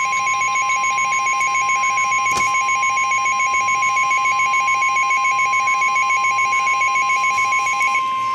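Emergency Alert System warning alarm tone announcing a severe thunderstorm warning: a single steady high tone, with a fast pulsing beep layered over it that stops shortly before the end.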